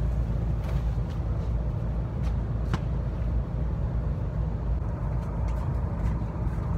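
Steady low rumble of wind buffeting the microphone, with a few light clicks as clothes are hung on a metal drying rack.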